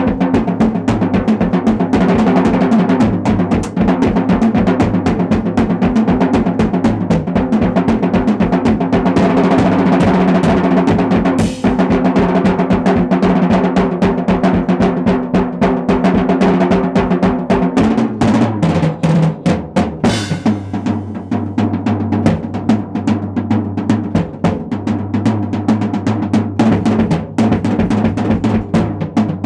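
Acoustic drum kit played in a fast, continuous solo: rapid rolls and strokes on snare and toms with bass drum underneath. The pattern and the drums' pitch change a little past halfway, and a couple of bright crashes cut through near the middle.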